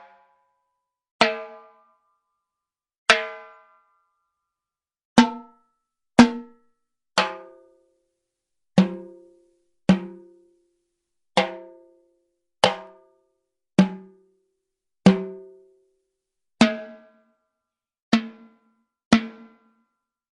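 Timbales struck one hit at a time, about fourteen single strikes spaced one to two seconds apart. Each hit gives a sharp crack that rings briefly at a clear pitch and dies away, and the pitch changes from hit to hit.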